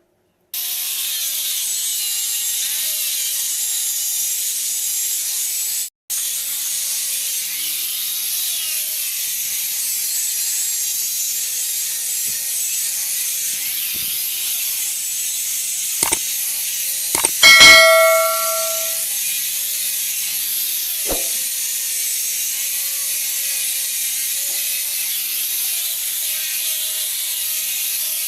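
Steady mechanical hiss with a few sharp knocks about sixteen seconds in, then a single ringing metallic ding that fades over a second or two.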